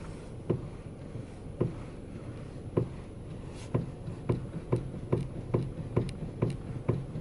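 Dull knocking from the steering of a 2015 Volkswagen Polo Sedan, over a steady low hum: three knocks about a second apart, then a faster run of about two a second. The knock is the sign of play in the steering.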